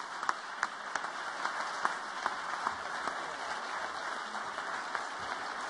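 Audience applauding steadily, a crowd of many hands clapping, with single sharper claps standing out now and then.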